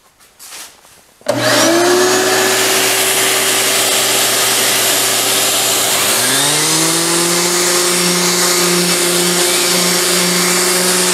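Random orbit sander starting up about a second in and running steadily as it sands a maple-and-oak butcher block top. About halfway through a second motor spins up and runs alongside it.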